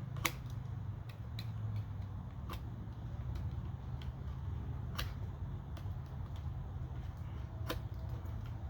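Utility box knife cutting and paring wood on a carving: a handful of short, sharp snicks spread irregularly as the blade bites and chips come away, the loudest just after the start, over a steady low hum.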